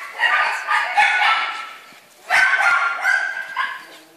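Small dogs yapping and barking in quick, high-pitched bursts, in two runs, the second starting about halfway through.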